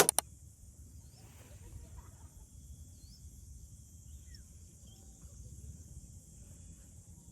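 Outdoor countryside ambience: a steady high buzz of insects, with a few faint, short bird chirps scattered through and a low rumble underneath.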